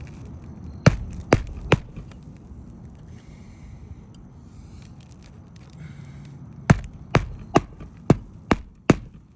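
Hammer blows driving roofing nails through a replacement asphalt shingle: three quick strikes about a second in, then six strikes in a steady rhythm near the end.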